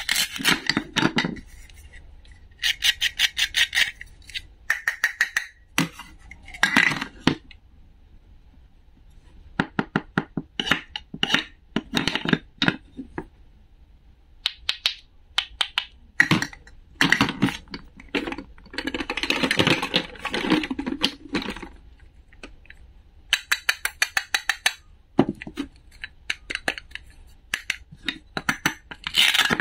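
Toy cutting fruit being sliced: the hook-and-loop pads holding the plastic fruit halves rip apart in repeated short tears, each a run of rapid ticks. Between the tears come taps and clacks of the plastic pieces and the wooden toy knife on a wooden board.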